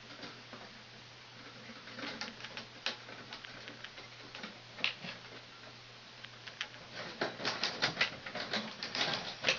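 Light clicks and rattles of thermostat wires and connectors being handled and joined, scattered at first and coming thick and fast in the last few seconds, over a faint steady hum.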